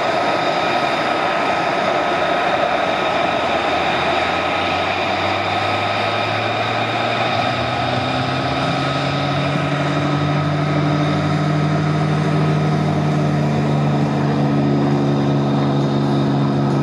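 P-51 Mustang's V-12 piston engine and propeller at takeoff power during the takeoff roll. The engine note swells and rises gently in pitch from about a third of the way in as the fighter accelerates down the runway toward lift-off.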